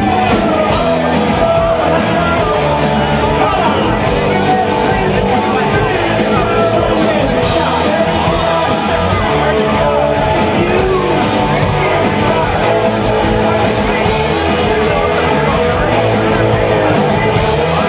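Rock band playing live and loud: drums keep a steady beat under the band, with a singing voice over it.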